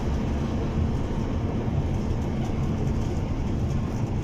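Mercedes-Benz truck's diesel engine and tyre noise heard from inside the cab while cruising at steady speed on the highway, an even low drone with no change.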